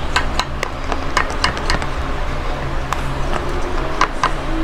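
Glue-based slime mixture being stirred in a clear plastic tub: irregular light clicks and taps of the stirrer against the tub, several a second, over a steady low hum.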